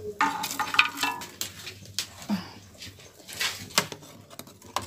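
Metal spoon stirring soup in a pot, clinking and scraping against the pot's side in a run of sharp knocks. A short high whine sounds near the start.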